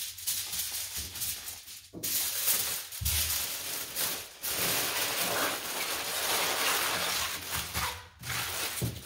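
Aluminum foil crinkling and crackling as a foil-wrapped trout is double-wrapped by gloved hands, a continuous rustle broken by a few short pauses, with some low bumps of handling.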